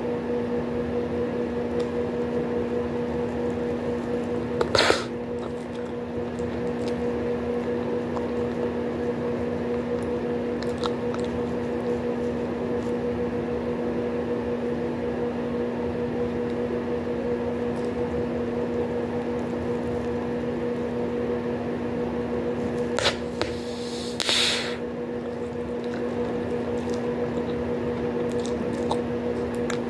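Bubblegum being chewed over a steady low hum, with a sharp snapping pop about five seconds in and two more pops close together later on as gum bubbles burst.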